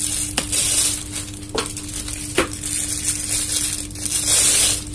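Clear plastic wrapping crinkling and rustling as a bag strap is handled inside it, with three sharp clicks in the first half and a louder rustle near the end.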